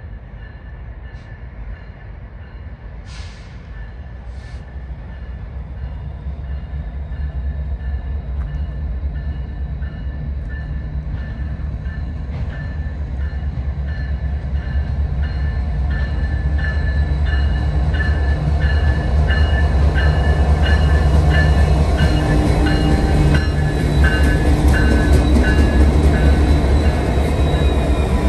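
Norfolk Southern diesel locomotives approaching and then passing, their low engine rumble growing steadily louder. A grade-crossing bell rings in an even repeating beat throughout.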